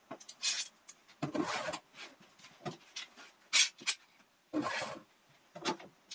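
Clamps being handled and slotted into an overhead rack: an irregular run of short clicks, clatters and rubs of metal and plastic, with a louder knock about three and a half seconds in and another about a second later.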